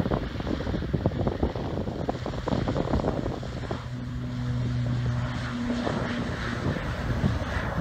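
Wind buffeting the microphone over the drone of an ATR 72-600's twin turboprops at takeoff power as it rolls down the runway. From about four seconds in, a steady low propeller hum comes through clearly for a couple of seconds.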